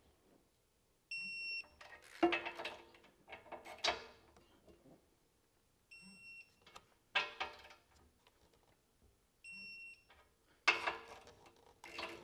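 Digital torque wrench beeping three times, each a short steady tone, as each hitch mounting bolt reaches the set torque of 110 foot-pounds. After each beep come sharp clicks and clanks of the wrench and socket on the bolts.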